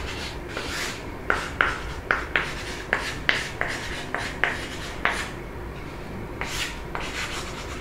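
Chalk on a chalkboard as an equation is written out: a run of short, sharp taps and scratches, about three a second, thinning out near the end.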